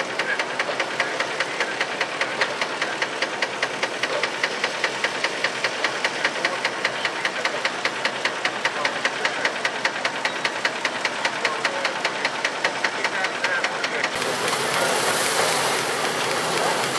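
An old engine running with a steady, even knock, about five beats a second. About fourteen seconds in, it gives way abruptly to the steady rushing clatter of a stationary threshing machine running while it is fed with sheaves.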